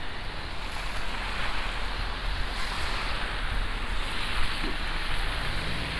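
Wind blowing across the microphone in a snowstorm: a steady rushing noise with low, uneven buffeting. A low steady hum, like a vehicle engine, comes in near the end.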